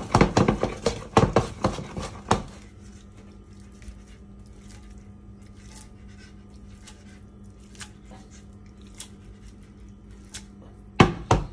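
A frying pan of spaghetti rattling and knocking against a glass induction hob as it is shaken and tossed, a quick run of clatters for about two seconds. Then a steady low hum with faint scattered ticks, and a short clatter near the end as the pan knocks on the hob again.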